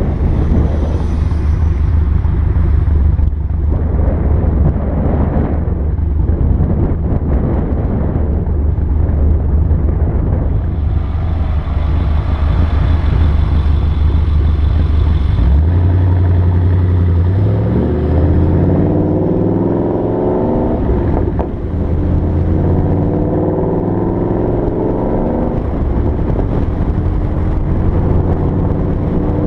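2014 Mustang GT's 5.0 V8 running through Roush axle-back exhausts with the resonators deleted, a steady low exhaust note while driving. About halfway through the note steps up and rises as the car accelerates, then settles at a higher steady pitch.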